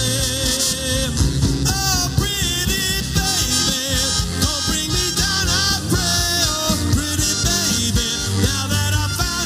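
Live pop band playing an instrumental passage over a steady beat: a horn section with electric guitar, bass, drum kit and keyboards.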